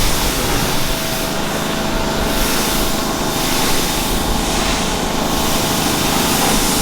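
High-pressure car-wash wand spraying a car, a steady loud hiss of water over the hum of the washer's pump.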